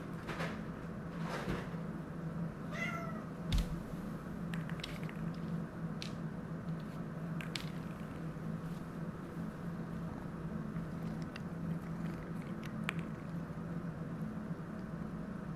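Domestic cat giving one short meow about three seconds in, followed by a thump; light clicks and taps come and go against a steady low hum.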